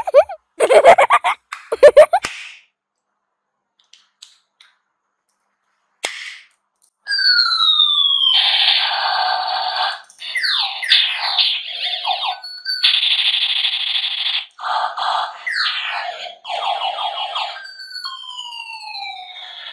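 Battery-powered plastic toy ray gun playing its electronic firing sound effects from about seven seconds in: repeated falling laser zaps alternating with loud buzzing, siren-like warbles as the trigger is pressed again and again. A brief loud clatter in the first couple of seconds.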